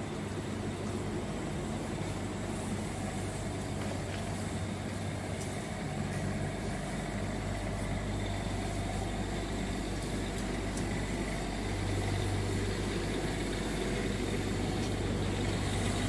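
A steady low mechanical hum and rumble with a faint hiss over it, growing a little louder about three-quarters of the way through.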